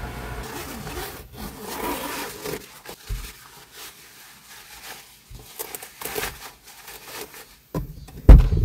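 Irregular rubbing and scraping sounds, with one heavy low thump near the end.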